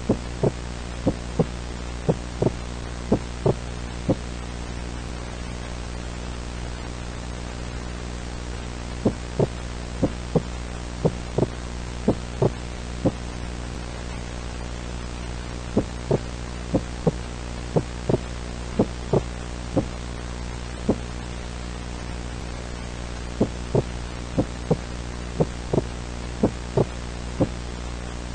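A steady, low electronic hum or drone with many evenly stacked tones under a faint hiss. Over it are short, low pulses, the loudest sounds here, coming in irregular clusters with pauses of a few seconds between them.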